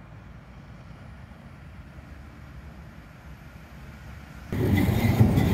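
Faint distant rumble of road traffic and an approaching tram, then about four and a half seconds in, suddenly much louder: a Duewag GT8Z articulated tram passing close, its wheels rumbling on the rails with brief high whines.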